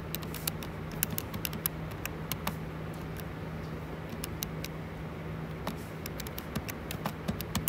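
Scattered light tapping clicks, irregular and a few a second, over a steady low hum.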